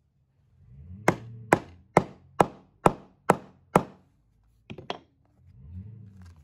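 Hammer striking a steel chisel seven times in a steady rhythm, about two blows a second, driving it through a cardboard template into rawhide to cut holes in a drumhead. Two lighter clicks follow.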